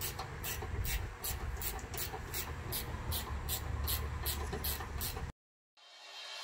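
Ratchet wrench working the 15 mm strut-tower nuts loose, clicking in an even rhythm of about three strokes a second. It cuts off suddenly about five seconds in.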